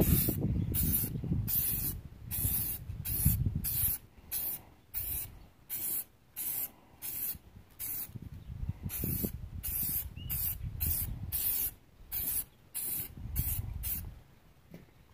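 Aerosol spray can of metallic silver paint being sprayed onto a steel wheel in short hissing bursts, about two a second, stopping near the end.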